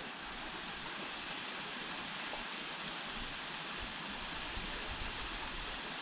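Steady rush of falling water from a waterfall stream, an even hiss with no breaks.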